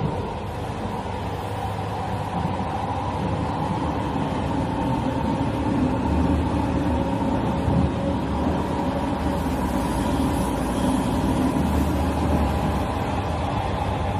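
Subway train running, heard from inside the carriage: a steady low rumble of wheels and track noise.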